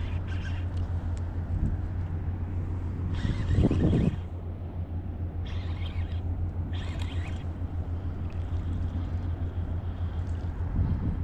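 A boat's outboard motor idles with a steady low hum. A few short hissy bursts come over it about three, five and a half and seven seconds in.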